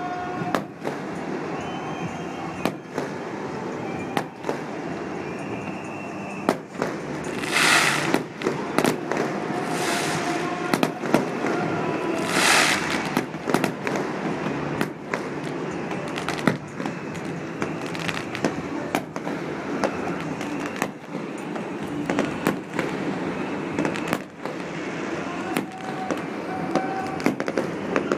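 Fireworks display: a rapid, irregular string of sharp bangs from bursting shells, with a few longer hissing bursts about 7, 10 and 12 seconds in.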